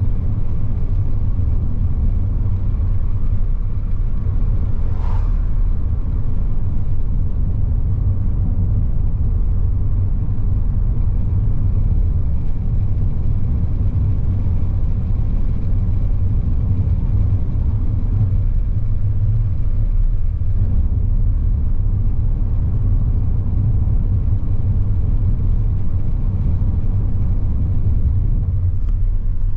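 Steady low rumble of a car being driven, with a brief higher sound about five seconds in.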